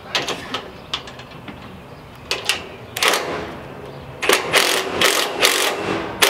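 Cordless power driver with a 13 mm socket running in short bursts as it tightens bolts on a metal trailer rack. Sharp clicks of the socket on the bolt heads come in the first half, and a longer rattling run comes near the end.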